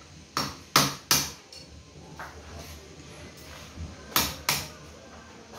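Sharp metal knocks and clinks of hand tools and parts on a workbench: three quick ones in the first second or so and two more about four seconds in, some with a short ring.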